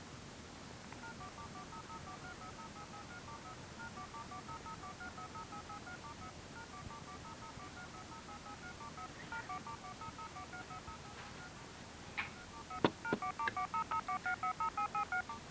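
Touch-tone telephone dialing tones: a long run of short two-note beeps, several a second, faint at first. A couple of clicks come about twelve seconds in, followed by a louder, quicker run of beeps near the end.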